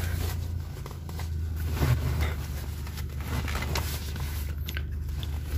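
Toyota Innova's 2.4-litre diesel idling, a steady low hum heard inside the cabin, with a few light clicks and rustles of handling.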